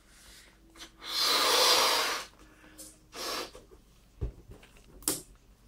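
A person blowing up a round latex balloon by mouth: one long, hard breath into the balloon about a second in, then a shorter one around three seconds in, followed by a brief thump.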